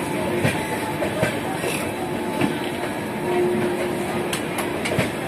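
Indian Railways passenger coaches rolling past close alongside: a steady rumble of steel wheels on the rails, with irregular sharp clicks as the wheels cross rail joints.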